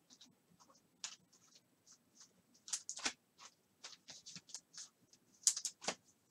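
Faint, irregular light clicks and scratching sounds of small handling on a desk, with a brief cluster of louder clicks about five and a half seconds in.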